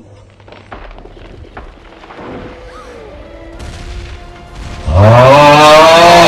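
Quiet, faint film soundtrack with scattered soft tones and clicks. About five seconds in, the 'AAUUGHHH' meme sound effect cuts in loud: a man's long yell that starts low, bends upward and wavers.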